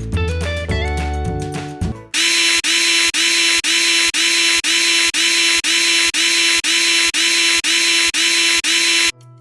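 Background music for about two seconds, then a small electric power tool, like a drill or power screwdriver, whirring loudly in short, even pulses about two a second for some seven seconds before cutting off.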